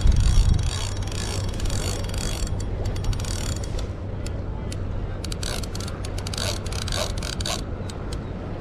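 Penn spinning reel's drag clicking in rapid runs of ratchet clicks, densest in the first couple of seconds and sparser after, with a very large fish hooked on the line.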